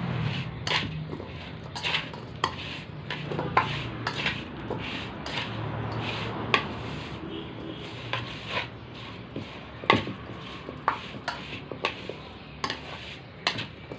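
Wooden chopsticks tossing Chinese shallot bulbs and their stalks in a metal mixing bowl to coat them in seasoning. The chopsticks strike the bowl's side in irregular clicks and taps.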